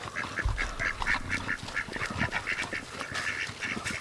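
A group of domestic ducks quacking in a rapid, continuous run of short calls, with a brief low rumble about half a second in.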